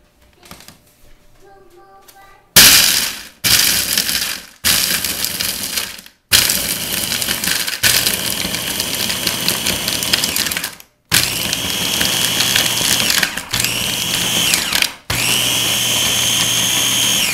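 Ninja Master Prep food processor crushing ice in pulses. The motor starts and stops about eight times, each run lasting one to three seconds, with the ice rattling against the blades. The later pulses carry a steady high whine.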